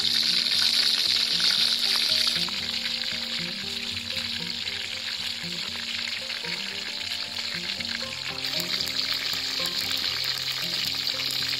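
Jackfruit pieces deep-frying in a wok of hot oil: a dense, steady sizzle of bubbling oil. It drops a little about two and a half seconds in and builds again near the end, over light background music.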